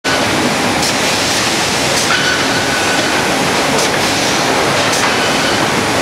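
Sawmill edger line running: a loud, steady clatter of chain conveyors, rolls and saws, with a few sharp clacks and a brief high tone about two seconds in.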